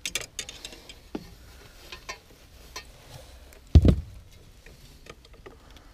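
Light clicks and knocks of fishing gear and a landing net being handled in a small boat, with one heavy dull thump about four seconds in.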